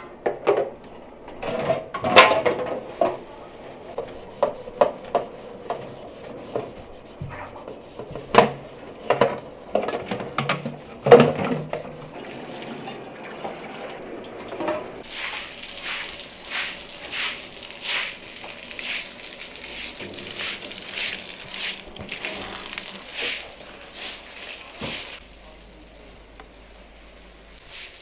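Cookware knocking and clinking, a utensil or lid against a metal pot, through the first fifteen seconds or so. Then about ten seconds of sputtering, splashy noise, fading near the end.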